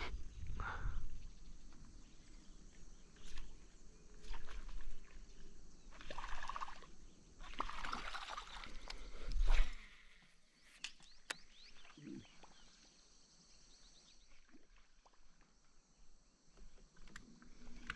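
Water splashing and sloshing in uneven surges, with a few sharp clicks; the splashing dies down about halfway through.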